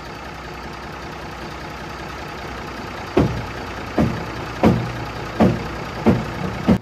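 The 1965 Mack B61 dump truck's turbocharged Thermodyne diesel runs steadily while the dump bed lowers. From about halfway through, six loud, short pulses come roughly every 0.7 seconds over the engine.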